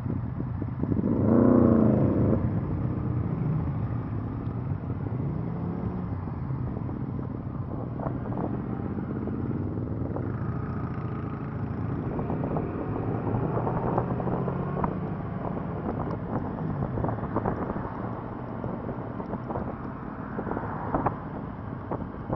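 Motorcycle engines pulling away and riding in a group: one revs up loudly about a second and a half in, then the engines run on steadily with rises and falls in pitch as they accelerate and change gear.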